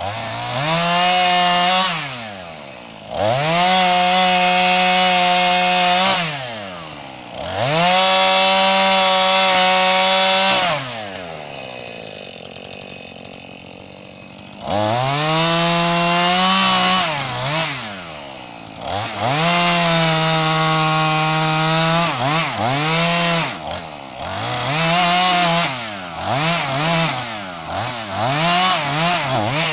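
Chainsaw bucking an oak log into blocks. The engine revs up to full throttle for cuts of two to four seconds and drops back to idle between them, with a longer idle in the middle. Near the end it is revved in quicker, shorter bursts.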